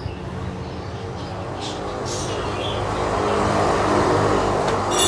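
A motor vehicle passing outside, its engine sound growing louder to a peak about four seconds in and then fading, with a few light taps over it.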